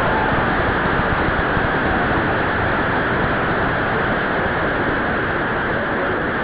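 Steady, loud hiss-like static noise of a poor-quality recording, with no clear tones or beats.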